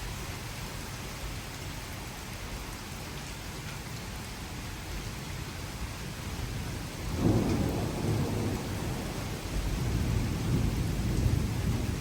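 Steady rain during a thunderstorm, with a clap of thunder a little past halfway that rolls on as a low rumble, swelling again near the end.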